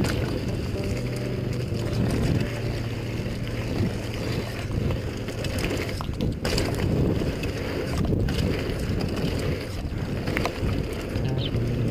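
Mountain bike riding fast down a dirt singletrack: a steady rumble of tyres on dirt and rattling of the bike, with scattered sharp knocks over bumps.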